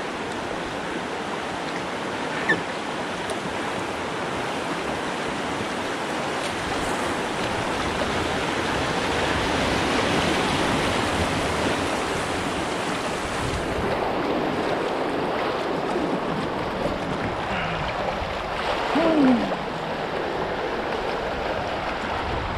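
Rushing river water in class 1–2 rapids around a kayak, a steady wash that swells a little midway. A single sharp knock comes a couple of seconds in, and a short sound falling in pitch comes near the end.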